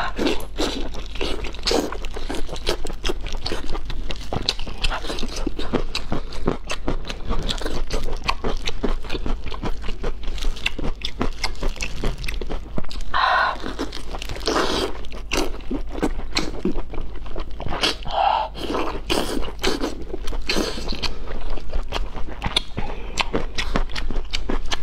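Close-up eating sounds: biting, chewing and wet smacking of saucy braised sausage, with rapid irregular mouth clicks and a few louder slurps partway through.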